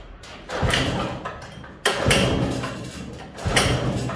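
Small gasoline engine of a longtail boat motor (rabeta) being pull-started: three hard pulls of the starter cord, about a second and a half apart, each a short cranking burst that dies away without the engine catching.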